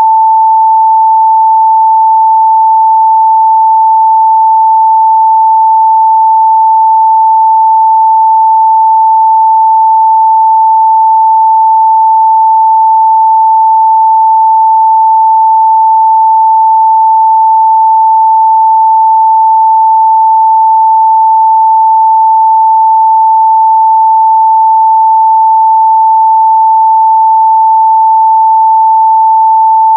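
Steady, loud pure 885 Hz sine-wave test tone, one unbroken pitch with no overtones.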